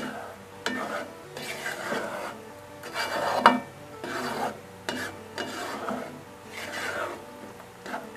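A utensil stirring and scraping in a cooking pot of beef in coconut-milk broth, in repeated strokes roughly once a second.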